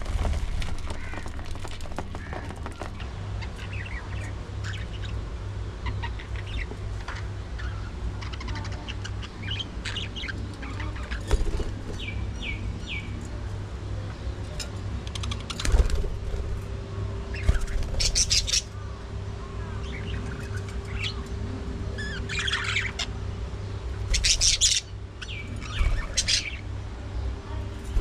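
Budgerigars chirping and chattering in short bursts of high calls, busier and louder in the second half, over a steady low rumble.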